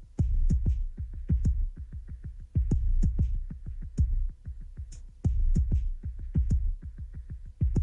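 Electronic music with a fast, steady drum-machine beat: deep kick-drum hits with short, high cymbal-like hits over them.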